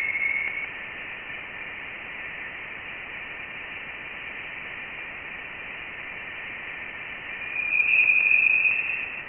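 A 'deep space' recording played as sound: a steady hiss with thin, steady whistling tones in it. A louder whistle swells in about seven and a half seconds in and eases off near the end.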